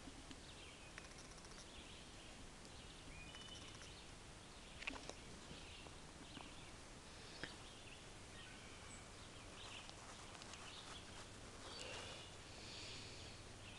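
Quiet woodland ambience: faint, scattered short bird chirps and light critter calls over a soft hiss, with a couple of soft clicks.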